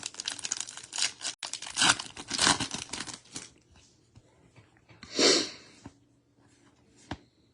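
A trading card pack's wrapper being torn open and crinkled: a run of rustling tears over the first three and a half seconds, one more short rustle about five seconds in, and a click near the end.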